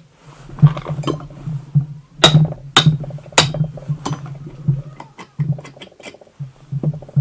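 Metal knocks and clinks from a two-stroke moped engine's crankcase and parts being handled and set against the bench during a teardown. Three sharp knocks about half a second apart, then a quicker run of lighter clicks.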